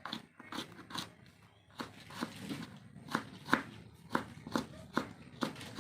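Kitchen knife chopping food on a cutting board in a steady run of sharp strokes, about two to three a second, pausing briefly after the first second.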